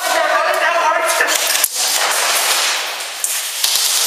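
Airsoft guns firing: a rapid run of sharp pops and clicks, with a single sharp crack about a second and a half in. A raised voice shouts over the first second or so.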